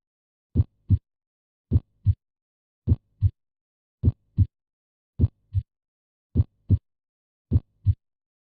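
Normal heart sounds, the S1 and S2 'lub-dub' of the valves closing, heard as seven evenly spaced pairs of short thuds. The two beats of each pair come about a third of a second apart, with a longer silent pause before the next pair, giving roughly 52 beats a minute.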